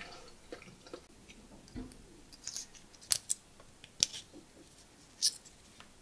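Victorinox Swiss Champ multitool being handled, giving several sharp metallic clicks, the loudest about halfway through and the last about a second before the end.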